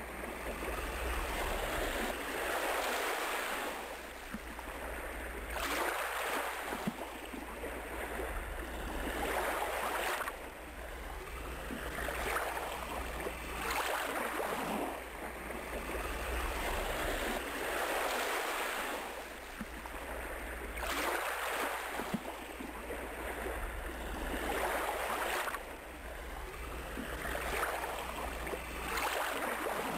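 Ocean surf: waves breaking and washing in one after another, each surge swelling and fading over a few seconds.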